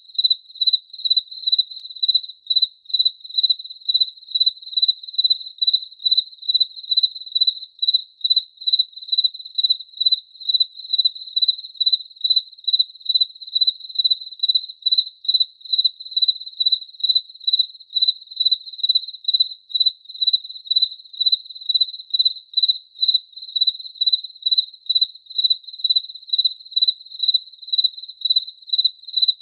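A cricket chirping: short, high-pitched chirps on one pitch, repeating in a steady, even rhythm of about two a second.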